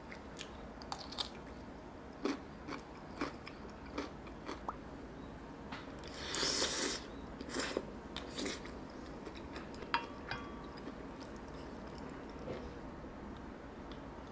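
Kitchen handling sounds: scattered light clicks and taps, with a louder crunching rustle about six to seven seconds in.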